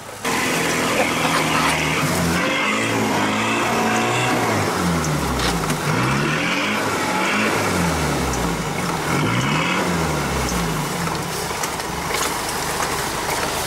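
Land Rover Defender 90's engine revving up and down over and over as it drives through deep muddy water, the pitch dropping and climbing about once a second, with water and mud splashing against the vehicle and occasional knocks.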